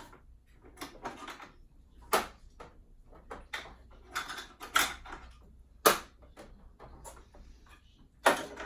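Sharp hard-plastic clicks and knocks with some rustling, from handling a capped Cricut Maker blade and stowing it in the machine's storage compartment. Four louder knocks stand out, about 2, 5, 6 and 8 seconds in.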